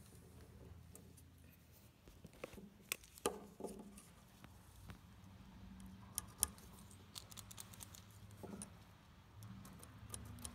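Faint, scattered clicks and taps of a tape measure and pencil being handled on a wooden 2x12 board while a cut line is measured and marked, over a low steady hum.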